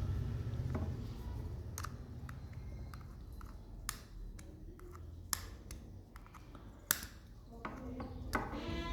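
Sharp plastic clicks and taps, about five of them spaced a second or more apart, from handling a Ford EcoSport remote key fob while the metal key blade is worked out of it.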